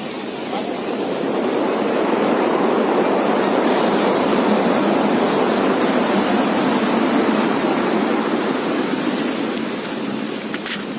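Rainstorm: strong wind and heavy rain making a steady rushing noise that builds over the first couple of seconds and eases near the end.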